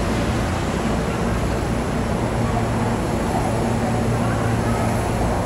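R160 subway train rolling past along the station platform: a steady low rumble of wheels and motors.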